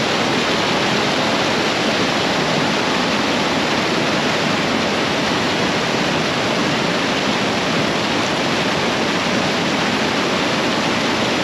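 Flowing water rushing steadily, a loud, even hiss of a stream or drain outflow.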